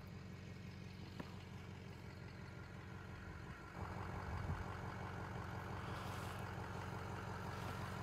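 Pickup truck engine idling with a steady low hum, a little louder from about four seconds in.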